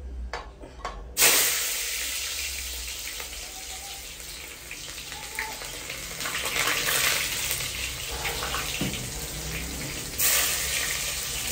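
Sliced red onions hitting hot oil in a large aluminium pot and sizzling. The sizzle starts suddenly about a second in, eases a little, and flares up again near the end as more onion is scraped in.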